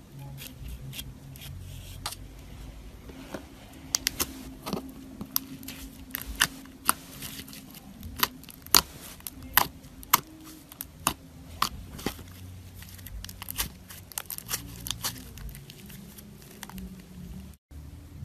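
Glitter slime being pressed with a straw and kneaded by fingers, giving off a run of sharp, irregular clicks and crackles, thickest in the middle stretch.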